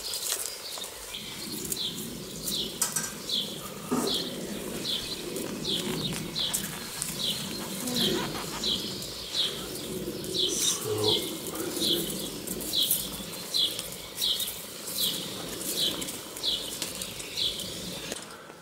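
Hands scraping and pressing loose garden soil, irregular rustling, under a small bird repeating a short, high, falling call about three times every two seconds.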